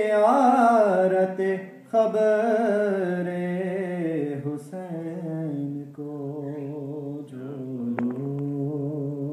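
A man chanting an Urdu manqabat solo, without instruments, in long drawn-out notes with slow ornamental bends in pitch, with a brief breath break about two seconds in.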